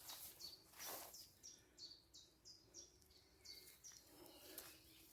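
Faint songbird calling: a quick series of short, high, downward-sliding notes, about three a second, over quiet background noise.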